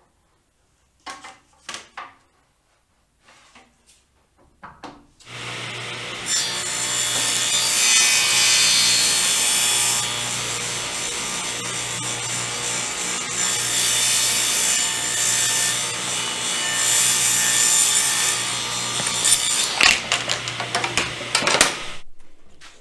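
A few light knocks of handling, then a Ridgid R4520 10-inch table saw starts about five seconds in and its blade rips a thin strip off the edge of a piece of wood, trimming a factory edge clean. Near the end the cut finishes with some clatter and the saw runs down.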